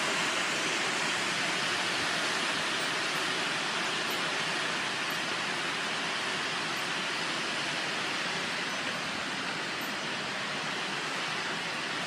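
Strong storm wind blowing without letup: a wall of wind making one constant, even rushing noise.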